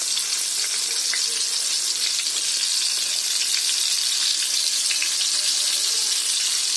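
Stuffed tomatoes frying in oil in a heavy kadai on a low flame: a steady sizzle with faint scattered crackles.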